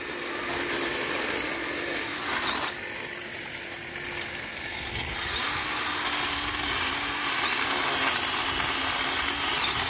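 Cordless electric pole saw running as it cuts into shrub branches: a steady motor whine over the rush of the chain and brush, its pitch dropping briefly now and then as the chain bites into wood. The whine gets louder from about halfway on.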